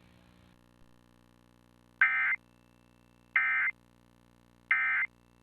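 Emergency Alert System end-of-message signal: three short bursts of shrill digital data tones, each about a third of a second long and a little over a second apart, marking the end of the alert. A faint steady hum sits underneath.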